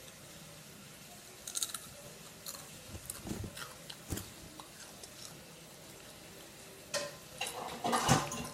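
Potato chips being bitten and chewed close to the microphone: scattered irregular crunches, with a denser run of crunching near the end.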